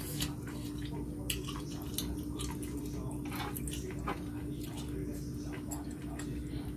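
Close-miked wet chewing and squelching sounds of eating baby octopus in thick spicy sauce, with scattered short smacks and clicks, over a steady low hum.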